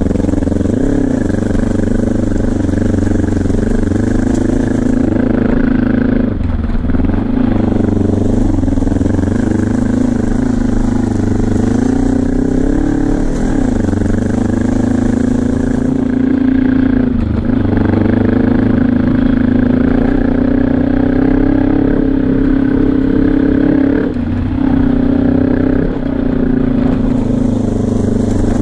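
Twin-cylinder engine of a dual-sport motorcycle running under steady throttle, its pitch dipping briefly and recovering about four times.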